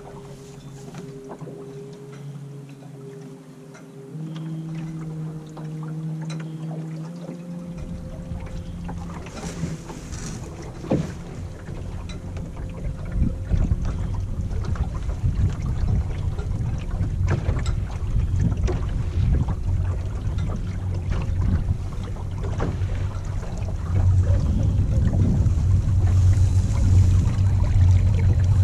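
Water rushing and splashing along the hull of a small dinghy under way, with wind on the microphone, growing louder in the last few seconds. During the first several seconds a few steady tones sound, stepping up in pitch twice.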